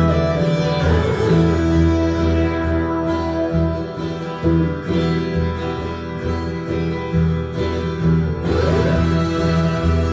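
Music with a steadily pulsing bass line, played through an Onkyo M-504 stereo power amplifier driving loudspeakers.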